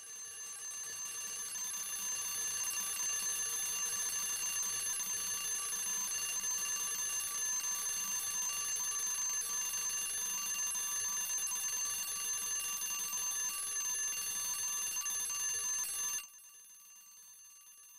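An alarm ringing: a steady, high ring that swells over the first few seconds, holds evenly, then cuts off suddenly near the end.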